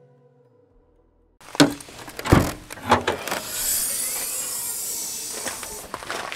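The last note of the intro music fades to near-silence. Then come three sharp knocks and thuds and a stretch of steady rustling hiss as camping gear is handled in the back of a car.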